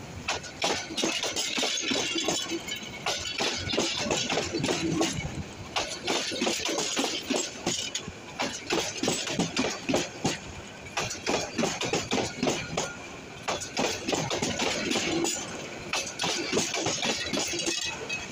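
Intercity passenger train's coaches rolling past, wheels clattering and knocking irregularly on the track over a steady rumble.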